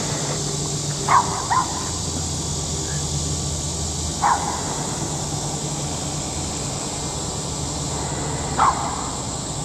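Miniature schnauzer barking: a quick double bark about a second in, then single sharp barks about four seconds and nine seconds in, over a steady low background hum.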